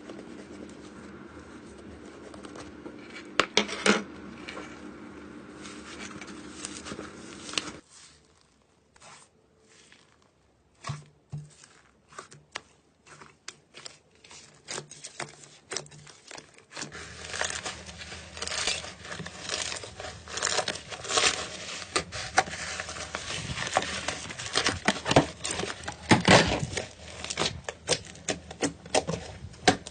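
Slime being pressed and stretched by hand, giving a run of quick crackling clicks and pops. The background changes suddenly twice, and the clicks are sparse for a few seconds, then grow dense and loud in the last half.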